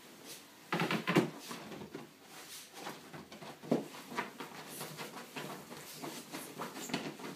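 A toy poodle scrabbling, rubbing and rolling against fabric sofa cushions: a run of scuffing and rustling with soft knocks, loudest in a cluster about a second in and once more near four seconds. The dog is agitated after a shampoo and a Frontline flea treatment.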